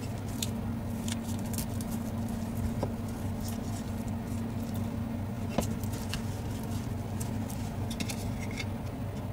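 Scattered small clicks, ticks and light taps of hands handling small parts and wires of a portable speaker under repair, over a steady low hum; one part of the hum stops about five seconds in.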